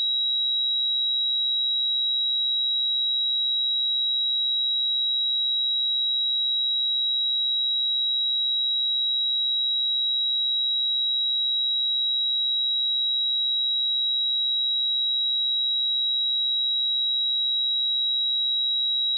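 A pure 3858 Hz sine-wave test tone held steady at one high pitch and constant loudness.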